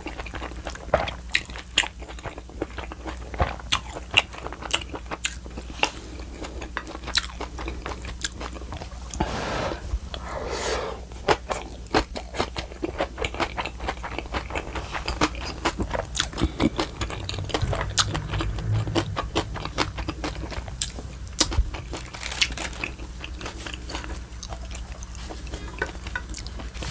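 A person chewing and biting food close to the microphone, with a dense, irregular run of sharp crunching and smacking clicks.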